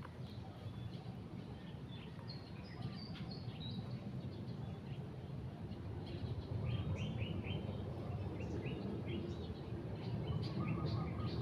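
Small birds chirping in the trees: short high chirps, some in quick runs of four or five, over a steady low background rumble.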